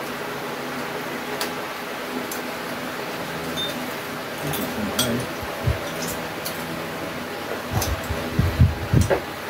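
Electric fan running with a steady hum, with scattered light clicks and clinks of chopsticks and spoons against bowls and plates. A few low, uneven thumps come in near the end.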